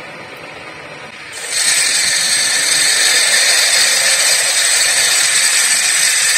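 A 7/16-inch twist drill, turning in a milling machine's spindle, boring a hole into a metal gear with coolant. About a second in the bit bites into the metal and a loud, steady cutting noise starts and holds.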